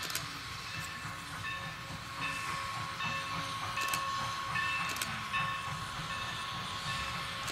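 Steam train of Norfolk & Western #475, a Baldwin 4-8-0, with wooden passenger cars rolling past: a steady low rumble with a thin high ringing tone and a few sharp clicks.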